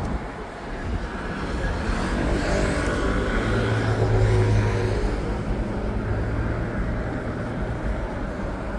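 City street traffic: a motor vehicle passes close by, its low engine hum growing loudest in the middle and then fading.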